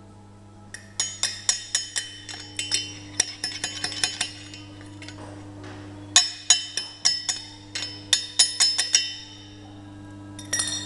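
Steel studs welded to a steel plate struck over and over with a metal bar: quick runs of bright, ringing metallic clinks, two long runs and a short one near the end.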